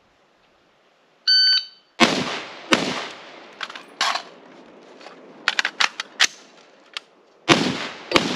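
A shot-timer beep, then two AR-15 rifle shots about three-quarters of a second apart. A few seconds of clicks and clatter from a magazine change follow, then two more rifle shots near the end.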